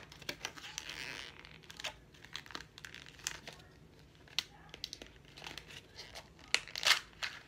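Earbud packaging being picked and pulled open by hand. A rustle runs through the first second or so, then come scattered sharp clicks and crackles, with a few louder ones near the end.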